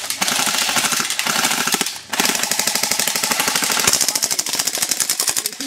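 Airsoft guns firing on full auto, a fast rattle of shots, with a short break about two seconds in.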